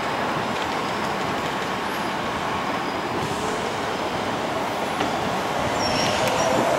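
Steady city street traffic noise, an even rumble with no distinct event, and a few faint high chirps about six seconds in.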